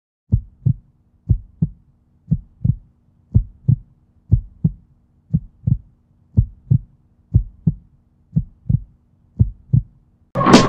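Heartbeat sound effect: ten double thumps, lub-dub, about one pair a second. Loud music cuts in just before the end.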